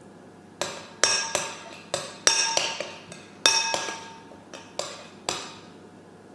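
A metal spoon clinking against a bowl about ten times at an uneven pace, each strike ringing briefly.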